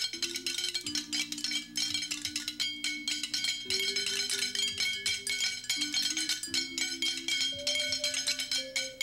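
Background music: a fast, busy pattern of clicking, wood-block-like percussion over held low notes that change every couple of seconds.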